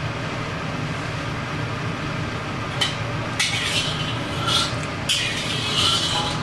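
Metal spatula scraping and stirring in a wok during stir-frying, in several strokes starting about three seconds in, over a steady low hum.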